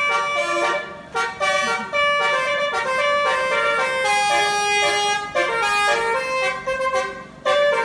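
Telolet basuri musical horn on a tour bus playing a melody: a run of held, reedy notes stepping up and down in pitch, with short breaks between phrases.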